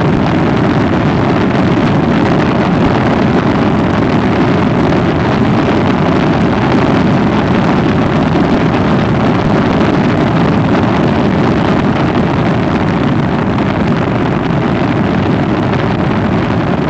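Loud, steady wind rush on the microphone over the running engine and tyre noise of a Honda ST1300 Pan European V4 motorcycle cruising at a steady speed.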